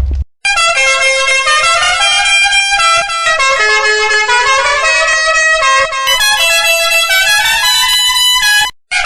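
A vehicle horn sound effect edited into a tune: a quick run of horn notes that change pitch every fraction of a second. It starts after a brief gap and cuts off just before the end.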